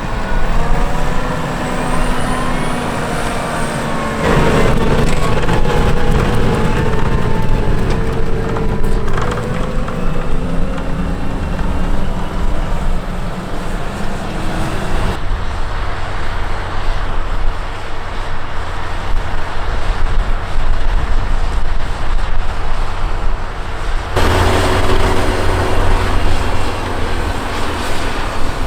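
Case IH Puma 240 CVX tractor on Soucy tracks working under load while ploughing, the engine running steadily with shifting whining tones over it. The sound changes abruptly a few times as shots change.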